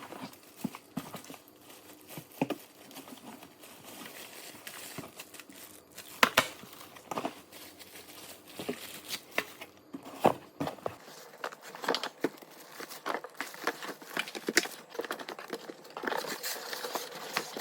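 Packaging being unboxed: plastic wrapping crinkling and rustling, with scattered knocks and clicks of parts and cardboard being handled. A few sharper knocks come about 6 and 10 seconds in.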